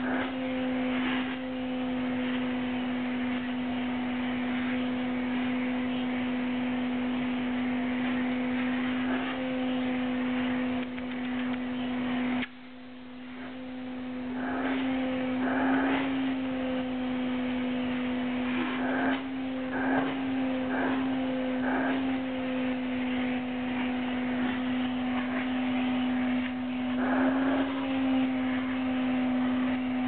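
Canister vacuum cleaner running with a steady hum and rush of air as its hose nozzle is drawn over a cat's fur. The rush of air drops away suddenly about twelve seconds in and builds back over the next few seconds. A few short scratchy rustles come as the nozzle brushes through the fur.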